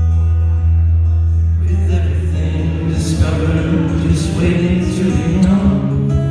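Live music: a man singing with acoustic guitar. A steady low chord holds at first, and the voice comes in a little under two seconds in.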